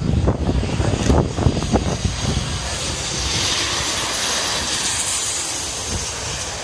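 Boeing 737-800 jetliner passing low overhead on final approach: its jet engine noise swells about three seconds in, peaks as it goes over, and fades as it flies on toward the runway. Wind gusts on the microphone at the start.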